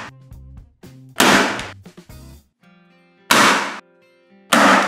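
Ozito electric stapler firing staples: three sharp shots, each dying away quickly, spaced one to two seconds apart, over background music.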